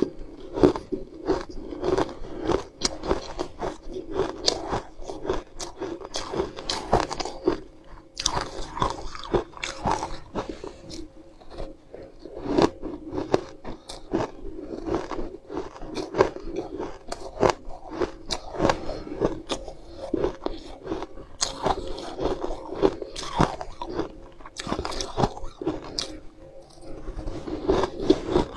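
A person biting into and chewing a crumbly white food close to the microphone. Many sharp, irregular crunches follow one another all the way through.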